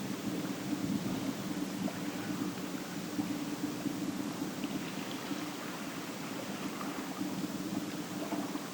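A low, steady engine hum over a constant wash of outdoor ambient noise; the hum weakens about halfway through and comes back near the end.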